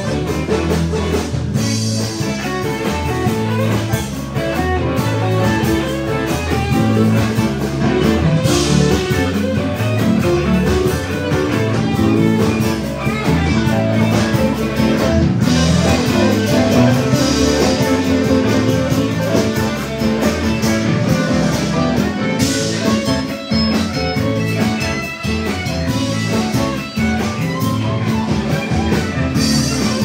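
Live blues band playing: electric guitars over bass guitar and a drum kit.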